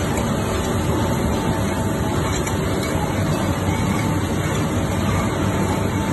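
Numax-3 mustard oil screw expeller running: a steady mechanical drone with a faint constant hum.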